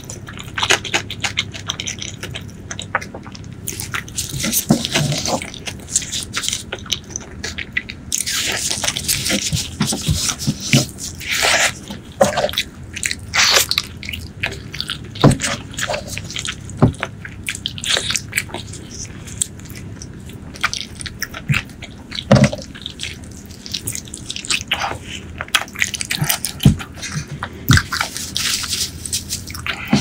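Close-miked wet chewing and lip-smacking of someone eating braised pork leg, a dense run of sticky clicks and smacks, with squelching as the gelatinous meat is picked up in a plastic-gloved hand.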